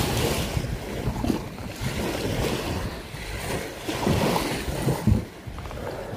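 Small shore waves washing and breaking around a kayak's hull as it runs up onto the beach, with wind buffeting the microphone in a few low gusts.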